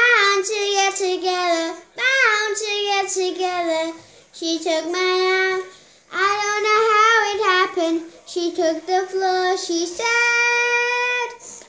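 A young girl singing solo, close to the microphone, in short phrases of about two seconds each with swooping pitch and no backing music. She ends on a long held note.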